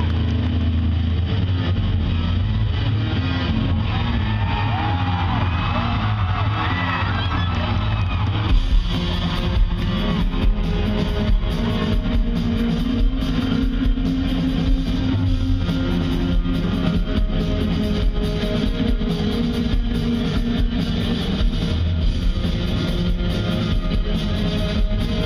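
Rock band playing live through an arena sound system: sustained guitar tones with wavering glides at first, then about eight seconds in the drums come in with a steady beat and the full band plays.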